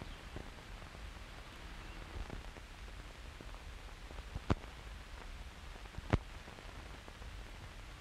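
Steady hiss and low rumble of an old film soundtrack with no voice or music, broken by two sharp pops about a second and a half apart near the middle.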